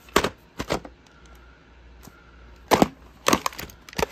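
Plastic VHS clamshell case being handled and opened, giving a series of sharp plastic clicks and snaps: two within the first second, then a quicker cluster of about four near the end.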